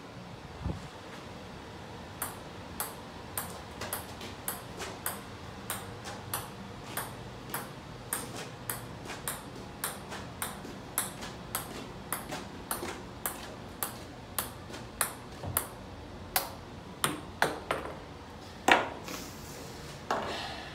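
Ping pong ball tapped up again and again on the face of a golf iron: a light, sharp click about every 0.6 s, some twenty-five in a row. A louder knock near the end.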